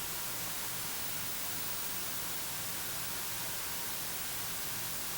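Steady static hiss with a faint low hum underneath, unchanging throughout.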